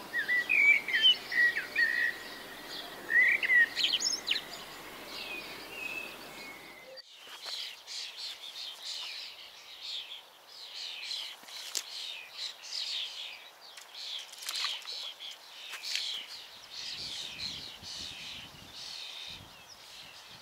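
Small birds singing and chirping around a reedy pond. The sound changes abruptly about seven seconds in, from a few gliding chirps to a busier chorus of short, quickly repeated high calls.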